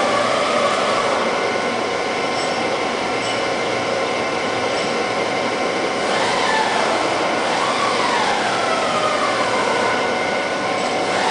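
Cincinnati Gilbert 5-inch CNC horizontal boring mill running, its boring spindle drawing back into the headstock: a steady mechanical hum and hiss with a motor whine that glides up and down in pitch a few times.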